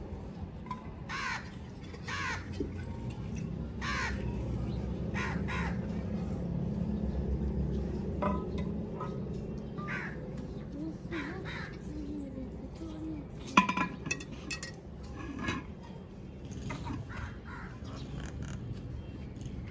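A crow cawing again and again, short harsh calls every second or so, over a low steady rumble. A single sharp knock stands out about two-thirds of the way through.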